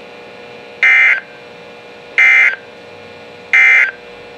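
NOAA Weather Radio end-of-message signal: three short bursts of SAME digital data tones, about 1.4 s apart, marking the end of the broadcast alert.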